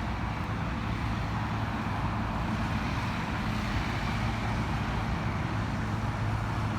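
An engine running at a steady speed: a continuous low hum with rushing noise over it, no change in pitch.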